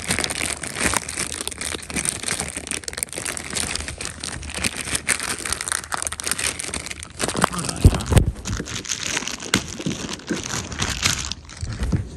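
Packaging being torn open and crinkled by hand, a continuous rustling crackle, with a few heavier thumps about eight seconds in as items are handled.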